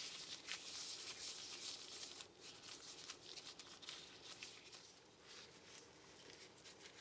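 Faint crinkling and rustling of thin disposable plastic gloves as hands twist and knead soft glutinous-rice dough. It is a little louder in the first two seconds or so, then fainter.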